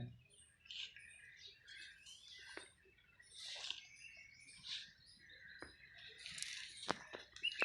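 Small birds chirping in short, very high, repeated notes, with scattered soft rustles and a few sharp clicks.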